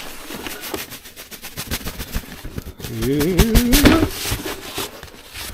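Packaging and a carrying bag being handled and rustled, with a wavering hummed vocal sound from a person about three seconds in, lasting about a second.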